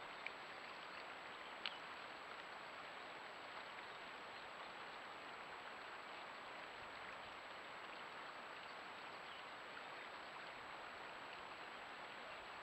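Water trickling steadily through a beaver dam of stacked sticks, a faint even rush of water, with two brief ticks in the first two seconds.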